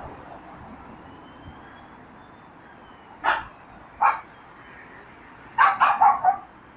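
Small dog, a Yorkshire terrier, barking: two single yaps, then a quick run of about four.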